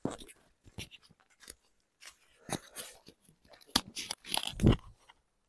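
Irregular clicks and short rustles, with a longer, louder rustle about four and a half seconds in.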